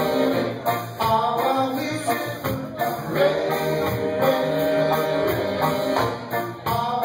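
Live rocksteady band playing: a man singing over saxophones, electric guitar and keyboard.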